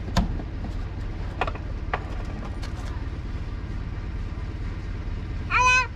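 A few sharp clicks and knocks from a small wooden hatch in a metal shed wall being handled, over a steady low rumble. A short high-pitched call comes near the end.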